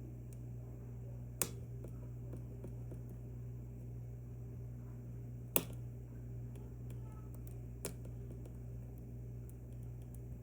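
Sharp clicks of a lock pick working the pins inside an Assa Twin V10 lock, three of them with the loudest about halfway through, over a steady low hum.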